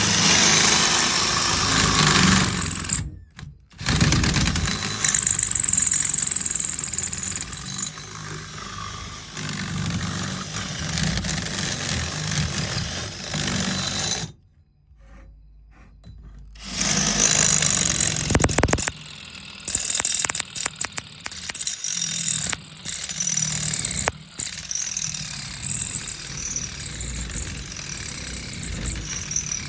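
Power tool cutting metal as a tractor wheel hub is bored out, with a high whine that rises and falls under load. It stops briefly about three seconds in and for about two seconds midway.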